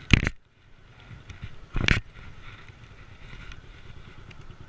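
Two sharp knocks about two seconds apart, over a faint steady low rumble.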